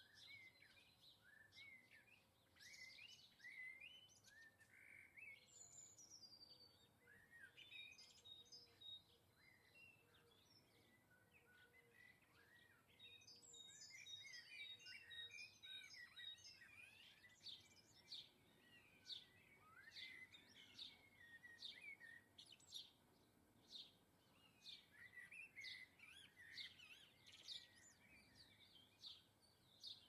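Small garden songbirds chirping and twittering in a quiet, busy stream of short high calls and brief trills. The calls thicken into rapid repeated chirps in the second half.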